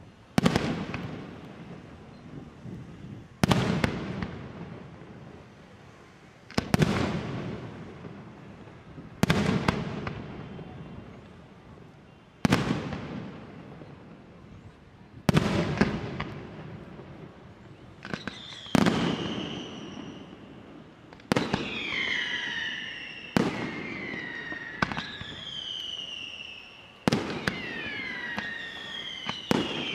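Aerial firework shells bursting one after another, each a sharp bang with a long echoing rumble. They come about every three seconds at first and faster in the second half, where falling whistles sound between the bangs.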